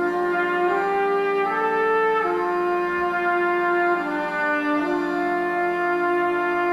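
Brass ensemble playing slow, held chords, the notes moving every second or so.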